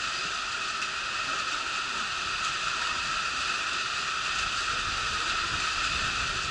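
Steady station-platform background noise: an even hiss with a constant, higher whine-like hum running through it, and a low rumble that builds from about four and a half seconds in.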